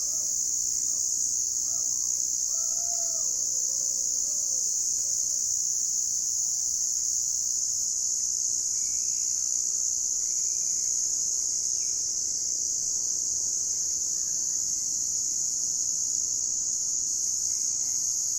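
Evening chorus of crickets: a steady, high, unbroken trilling. A few faint calls sound beneath it in the first few seconds and again around the middle.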